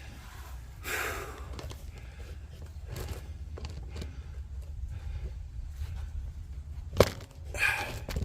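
A man breathing hard with sighing exhales while working under a van, with a single sharp knock about seven seconds in over a steady low rumble.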